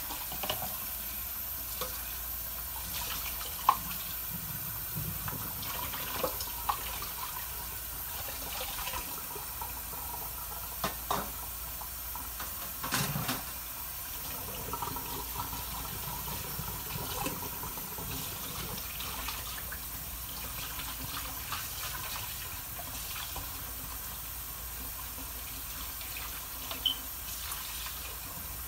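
Egg-topped dough with fried chicken sizzling under the closed glass lid of a red electric round grill: a steady hiss with scattered sharper pops and crackles.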